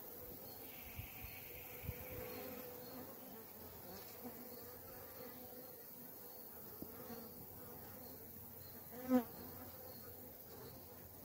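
Honeybees buzzing steadily around an open wooden hive as bee-covered comb frames are handled, with a few soft knocks of wood on wood. About nine seconds in, a bee buzzes loudly and briefly close by.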